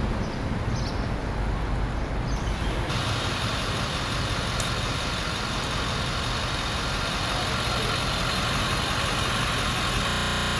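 Truck engines running steadily with street traffic noise. About three seconds in the sound turns abruptly brighter and hissier, and near the end it cuts to a closer, steady buzzing engine idle.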